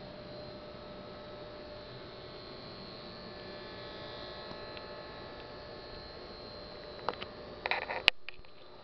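Steady electrical hum and hiss with faint whining tones from a car sound system's speakers, idling with no signal. Crackles come about seven seconds in, and a sharp pop follows just after eight seconds, after which the hum drops out.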